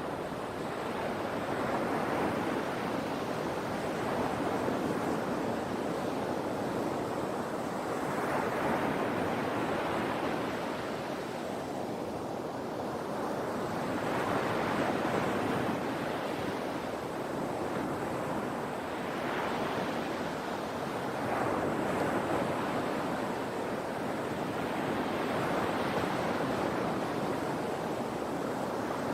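Sea waves breaking and washing on the shore in a steady rolling surf, swelling and easing about every three to five seconds.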